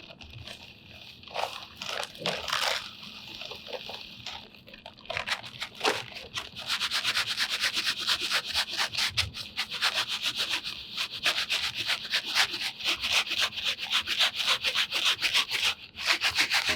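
Dry concrete mix being shaken through a hand sifter to get the fine cement out: a rasping of grit on the mesh, a few scattered scrapes at first, then a steady fast rhythm of several strokes a second from about six seconds in.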